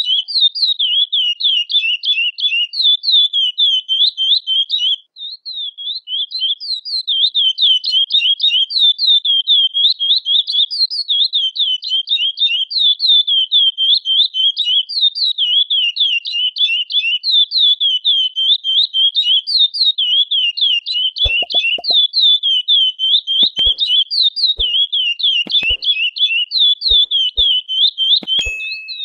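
Curió (chestnut-bellied seed finch) singing a long, rapid run of high chirping notes, with a brief break about five seconds in. A few faint clicks come in near the end.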